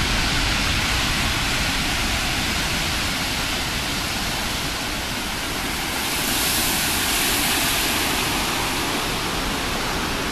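High typhoon waves breaking and rushing in as a steady wash of noise, swelling louder about six to eight seconds in.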